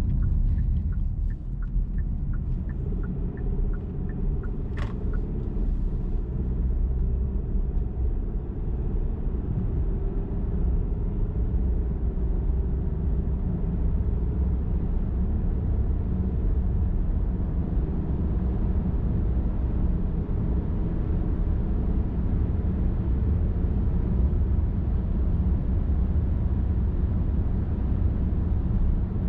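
Steady low rumble of a car driving on a highway, with a faint hum above it. A light regular ticking, about two ticks a second, fades out in the first few seconds, and a single sharp click comes about five seconds in.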